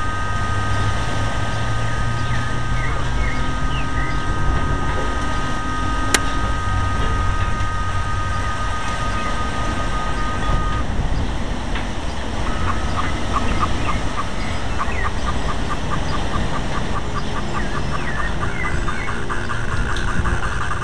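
Strong gusty wind rushing through tree foliage and buffeting the microphone, with a steady high-pitched whistle of the wind. About halfway through the whistle stops and a rapid chirping, several short pulses a second, takes its place.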